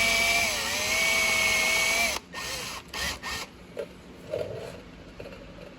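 Power drill boring a pilot hole into a soft broken-off bolt for an easy out. The motor whine dips briefly under load about half a second in, recovers, then stops about two seconds in, followed by a few light clicks and knocks.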